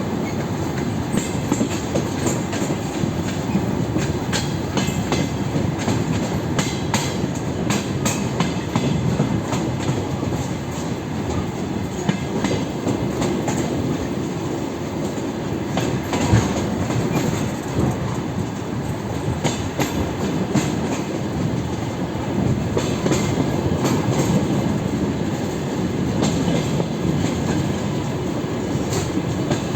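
DR1A diesel multiple unit running along the line: a steady rumble of wheels on track, with irregular clicks and knocks as the wheels pass over the rails.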